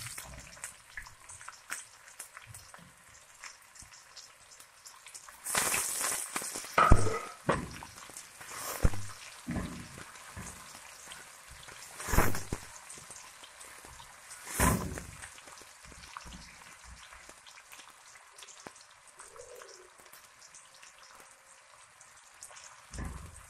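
Freshly added sliced onions sizzling in hot oil with cumin seeds in a stainless steel karahi, at the start of frying them golden. Several loud spatula strokes against the steel pan come between about five and fifteen seconds in as the onions are stirred.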